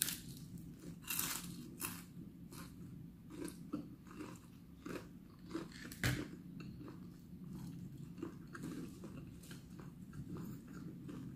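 Close-up biting and chewing of breaded fried chicken: irregular crunches, with one sharper crack about six seconds in.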